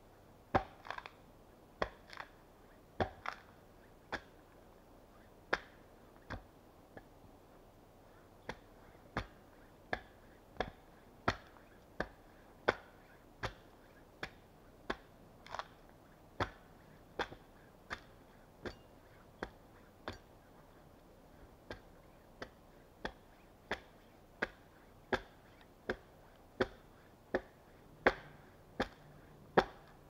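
Axe chopping into a felled log, sharp single strikes; irregular at first, then a steady beat of about one and a half strikes a second, with two brief pauses.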